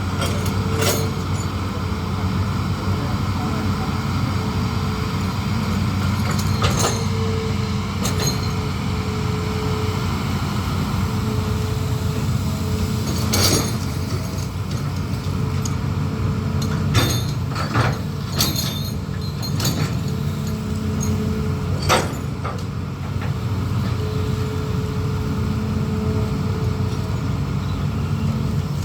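Amphibious excavator's diesel engine running steadily, with a higher tone that comes and goes several times as the machine works. Scattered sharp clanks and knocks, a handful of them, the loudest about halfway through and again later on.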